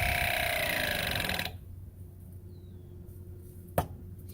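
Ridgid ProPress battery press tool running its motor as it crimps a copper press fitting, its pitch dropping slightly before it stops abruptly about a second and a half in: the crimp cycle is complete. A single sharp click follows near the end.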